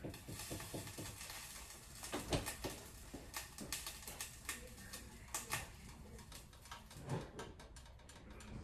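Faint, irregular clicks and light knocks of kitchen items being handled.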